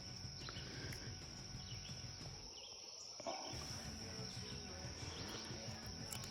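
Quiet outdoor ambience: a steady, high-pitched insect chorus of crickets over faint low background noise.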